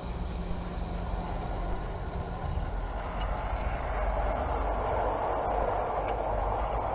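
Garden-railway model train, a small tank locomotive hauling coaches, running along the track, with a low steady hum and the rushing rumble of wheels on rail that grows louder about four seconds in as the coaches pass close by.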